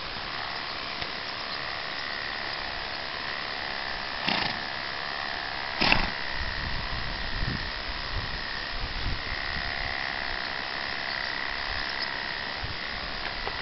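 Electric animal clippers running with a steady high buzz, interrupted by two brief louder noises about four and six seconds in.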